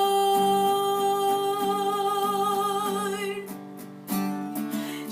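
Worship song sung to strummed acoustic guitar: the singer holds one long note for about three seconds, then the music dips briefly and the singer comes back in with a short word ("Lord") near the end.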